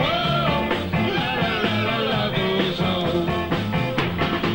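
Band music with a steady beat, in a rock-and-roll style.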